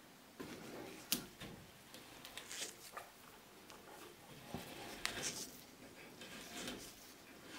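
Gloved hands handling a vintage compass cutter: soft rustling broken by a few sharp clicks and knocks, the loudest about a second in and another about five seconds in.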